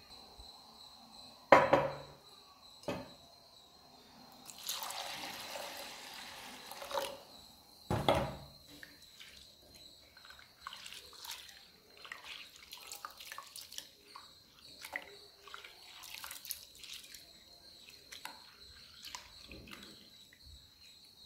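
Soaked rice being washed by hand in a glass bowl: water sloshing and pouring off for a couple of seconds, two louder thumps, then a long run of small wet splashes and clicks as the grains are rubbed in the water. A faint steady high-pitched whine runs underneath.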